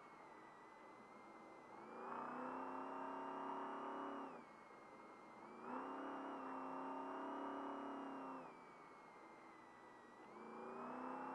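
Trophy Truck race engine pulling hard under throttle in repeated bursts. The engine note drops as the throttle comes off about four seconds in and again about eight and a half seconds in, and it builds again near the end.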